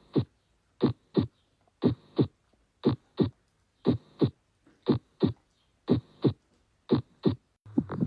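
Recorded human heart sounds: a steady lub-dub, the first and second heart sounds about a third of a second apart, repeating about once a second for eight beats.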